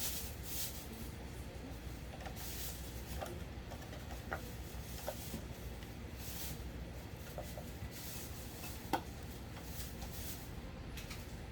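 Light clicks and rustling of small parts being handled over a steady low hum, with one sharper click about nine seconds in.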